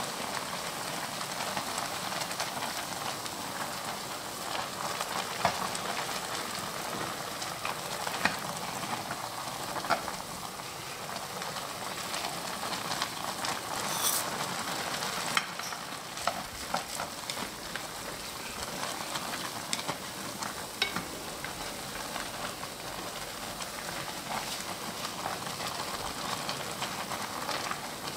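Chapagetti instant noodles boiling in a pan of water: a steady bubbling hiss, with chopsticks stirring and clicking against the pan now and then. A brief sharper rustle comes about halfway through as the dried vegetable flakes are poured in.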